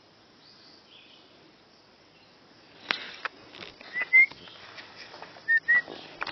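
A small bird calling twice, each call a pair of short high chirps, over scattered crackles and rustles of brush and twigs being stepped through.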